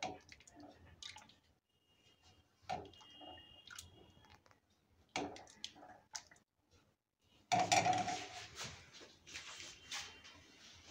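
Steel ladle scooping thick dal from a steel pan and pouring it into a ceramic bowl: quiet sloshes, drips and light clinks of metal on metal and china, with the loudest, longest stretch of sloshing and handling about three-quarters of the way through.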